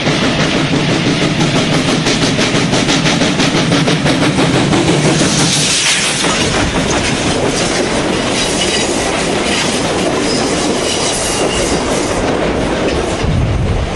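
South African Railways Class 19D steam locomotive passing close by at speed, with a fast, even exhaust beat. It is loudest, with a rush of steam hiss, as the engine goes by about six seconds in. Its passenger coaches then roll past, their wheels clicking over the rail joints.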